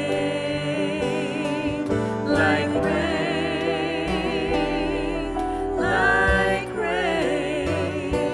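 A band playing a slow song while a singer holds long notes with vibrato, one sustained note after another.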